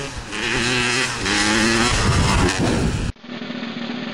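Dirt bike engine revving hard, its pitch climbing and dropping as the throttle is worked. The sound cuts off abruptly about three seconds in.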